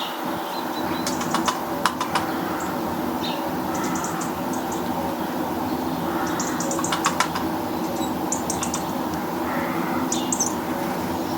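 Small garden birds at a feeder: brief clusters of high chirps, with sharp clicks and taps about a second or two in and again near the middle, over a steady low hum.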